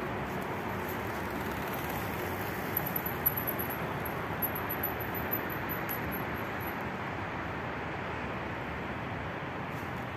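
Steady hum of road traffic, with a few faint clicks a few seconds in.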